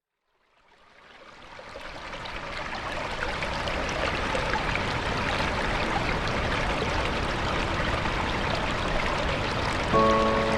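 Waterfall rushing as a steady roar of falling water, fading in from silence over the first few seconds. Near the end, a soft musical note enters on top of it.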